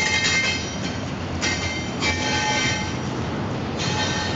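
Intermodal container freight train rolling past with a steady rumble, its wheels squealing in high-pitched bursts that come and go three times.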